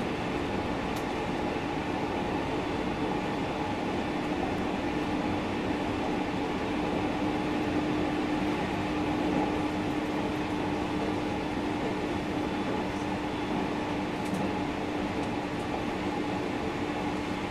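313 series 1100 subseries electric train running along the line: a steady rumble of the train in motion with a steady humming tone, slightly louder around the middle.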